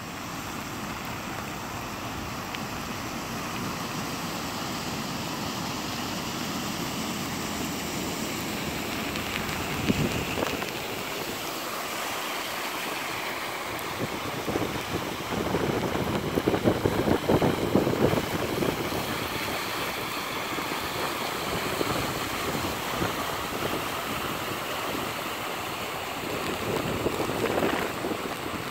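Floodwater flowing across a road, with wind noise on the microphone and vehicles driving through the deep water, tyres throwing up spray. Louder stretches come about halfway through and near the end.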